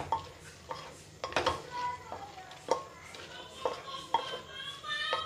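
Spoon stirring rice and vegetables in a metal pressure cooker, scraping the pot and knocking against its sides about once a second.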